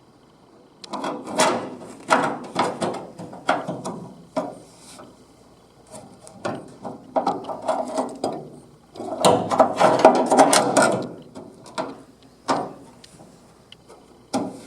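Irregular bursts of mechanical clattering and knocking, the busiest and loudest stretch about nine to eleven seconds in, with a single knock near the end.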